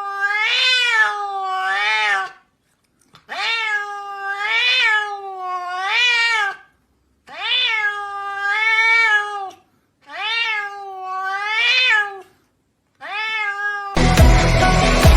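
A domestic cat meowing in long, wavering, drawn-out calls, five bouts separated by short pauses, each bout rising and falling in pitch several times. Loud electronic music cuts in near the end.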